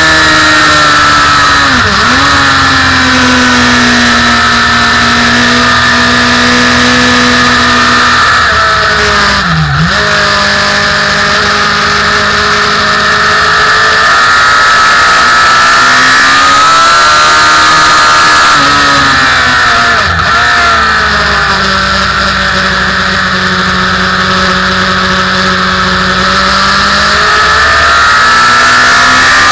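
Motorcycle engine heard on board at track speed over a steady rush of wind. Revs fall under hard braking at first, with brief dips in engine pitch about two, ten and twenty seconds in at gear changes, then climb under acceleration near the end.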